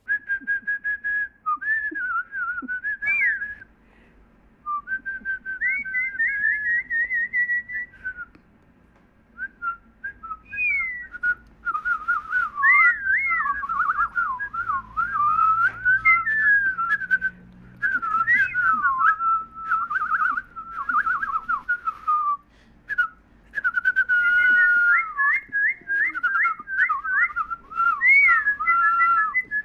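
A warbling, bird-like whistled melody: one clear pitch sliding up and down with quick trills and short breaks, ending in a run of rapid repeated chirps.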